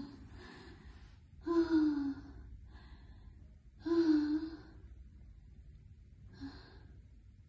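A woman's wordless vocal cries: two drawn-out cries falling in pitch, about two and a half seconds apart, with fainter breathy intakes and sighs between them.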